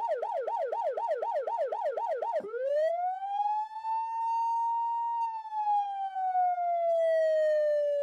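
Whelen WS-310 police siren, first in a fast yelp of about four to five up-and-down sweeps a second. About two and a half seconds in it switches to a wail that rises, holds and then slowly falls in pitch.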